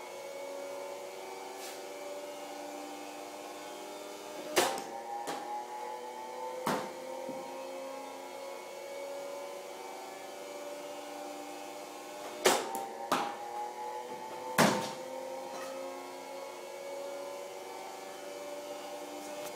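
Sharp knocks of a baseball striking hard surfaces in ground-ball practice, coming in two clusters, around five to seven seconds in and again around twelve to fifteen seconds. Underneath runs a steady mechanical hum whose tones slowly rise.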